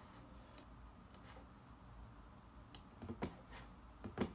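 Faint computer mouse clicks, a few scattered and then quick pairs near the end, over low room hiss.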